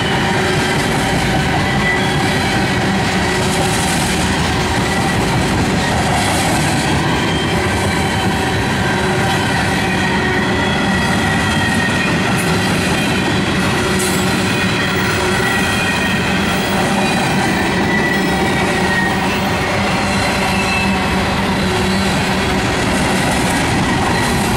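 Freight cars (tank cars and covered hoppers) rolling past close by: the steady rumble of steel wheels on rail, with faint thin high-pitched tones ringing over it. The sound holds at an even level throughout.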